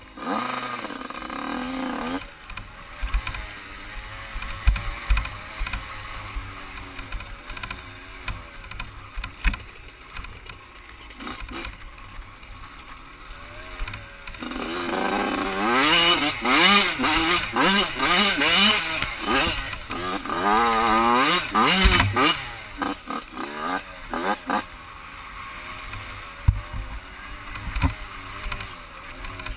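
Yamaha YZ85 two-stroke dirt bike engine revving up and down as the bike is ridden over a rough dirt trail, with wind rumbling on the helmet camera's microphone and knocks from the bumps. Midway the engine is loudest, its pitch climbing and dropping quickly over several seconds of hard throttle.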